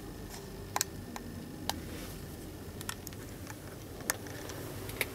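Low steady background hum with a handful of sharp, scattered clicks, one of them a quick double click about a second in.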